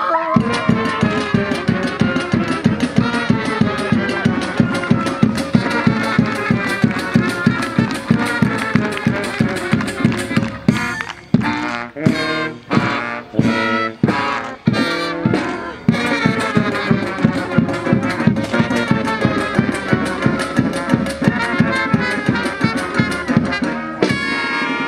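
Lively brass band music with a fast, steady beat. For a few seconds around the middle it breaks into short, separated chords, then the steady beat returns.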